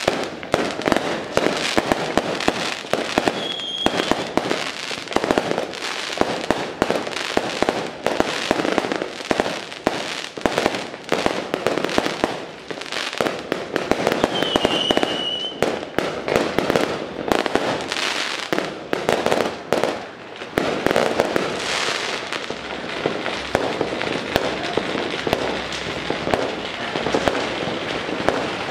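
Firecrackers going off in a dense, unbroken crackle of rapid bangs.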